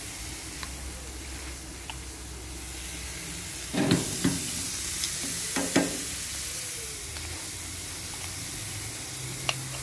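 Adobo-marinated pork chops sizzling on a hot grill grate. A few short clinks of metal tongs come at about four seconds and again near six seconds, as a second piece is laid down and arranged.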